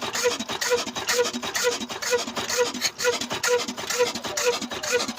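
Old black stationary diesel engine running steadily with a regular, even beat of about two strokes a second over a dense clatter.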